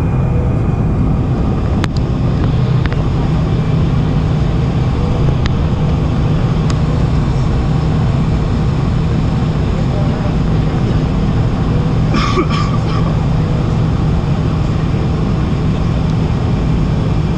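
Boeing 747 taxiing with its engines at idle, heard inside the passenger cabin as a steady roar with a low hum. A brief higher-pitched sound comes about twelve seconds in.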